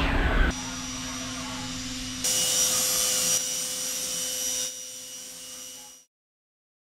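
Steady whir and hum of a DN Solutions DVF 5000 five-axis CNC machining center, loudest in the first half second, the level stepping down and up a few times. It fades out and stops about six seconds in.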